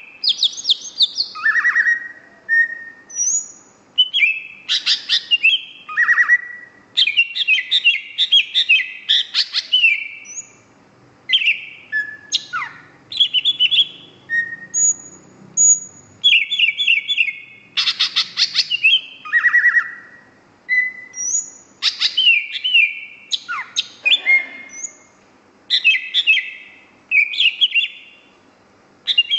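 Green leafbird (cucak hijau) singing non-stop in quick, varied phrases of chirps, whistled glides and rapid trills, with short pauses between phrases.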